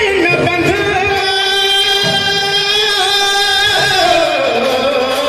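Live Sambalpuri folk song: a voice singing through a microphone, holding one long note for about three seconds before sliding down, over a barrel drum (dhol) beaten with hands and stick and other accompanying instruments.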